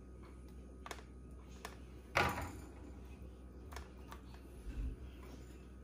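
Light clicks and one louder knock about two seconds in, from a metal ring mould and pan being handled as grilled courgette slices are pressed in by hand.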